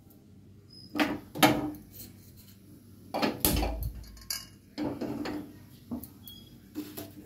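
An aluminium kadai being handled and set down on the pan supports of a gas stove as the burner is lit: a string of sharp metal knocks and clanks, with a brief low rumble about halfway through.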